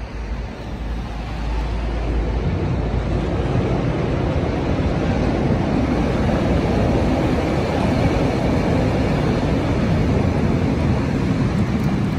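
Steady rumbling background noise of a busy exhibition hall, building up over the first two seconds and then holding level.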